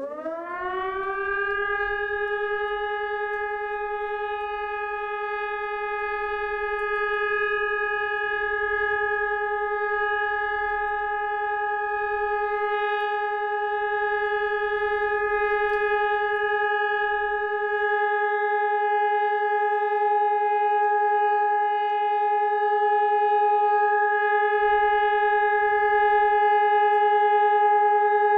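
Hörmann ECN 600 electronic civil-defence siren gliding up to pitch in the first second, then holding one steady, unbroken tone: the continuous-tone all-clear signal (Entwarnung) of the test alarm.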